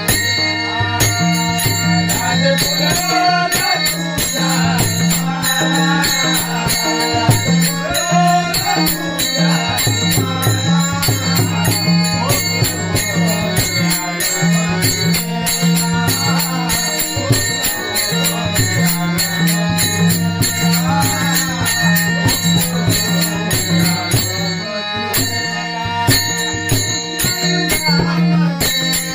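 Warkari devotional bhajan music: small hand cymbals jingle a fast, steady beat over a sustained low drone, with a wavering melody line on top.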